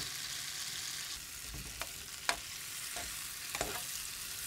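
Tomatoes and broccoli sizzling steadily in a frying pan, stirred with a metal slotted spoon that clinks and scrapes against the pan a few times, most sharply a little past two seconds in.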